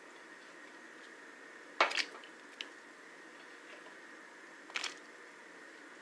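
Chopped onion being handled and added to the pot of beans: two short crunchy, squishing sounds about three seconds apart, with a smaller click between them.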